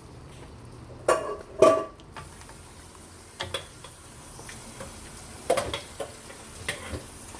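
A spoon clanks twice against a cooking pot about a second in. Chicken then sizzles in oil and curry paste while being stirred, with occasional taps and scrapes of the spoon on the pot.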